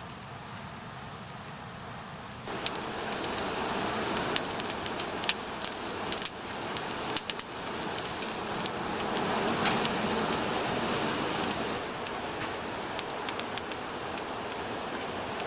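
Small campfire crackling with sharp irregular pops over a steady hiss. The hiss jumps louder about two and a half seconds in and drops back near the twelve-second mark, as at abrupt cuts between clips.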